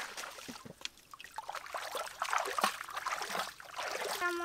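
Pond water splashing and trickling as a cloth bundle and a pot holding live fish are dipped into the shallows: irregular small splashes, busiest in the middle. A voice begins briefly near the end.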